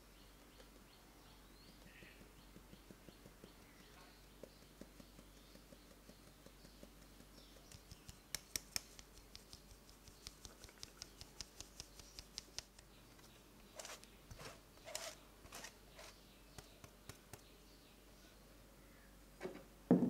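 Fine wire-mesh sieve being tapped and shaken over a glass bowl, sifting cocoa powder and flour: faint light ticks that quicken into a rapid patter, then a few longer brushing strokes. A couple of dull thumps near the end.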